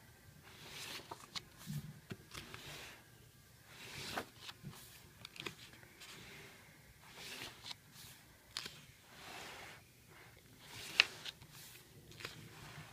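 Glossy photobook pages being handled and turned, with soft paper rustles, light clicks, and one sharp tap about eleven seconds in.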